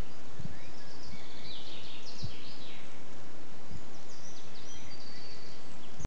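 Wild birds singing: quick high chirps and short sweeping notes, busiest in the middle and again near the end with one held whistle, over a steady hiss of background noise. A few brief low thumps come through underneath.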